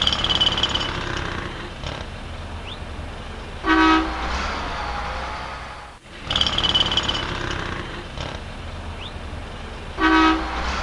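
City street traffic noise with a short, loud car horn honk about four seconds in. The same stretch repeats, with a second honk near the end.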